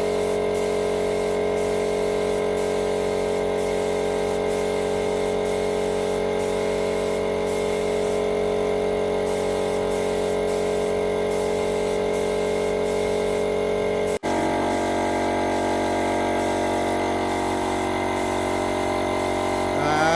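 Spray-painting equipment running steadily: a constant machine hum, likely the compressor feeding the spray gun, with a high spray hiss that keeps cutting in and out as the gun is triggered. A sudden break about 14 seconds in is followed by the same drone.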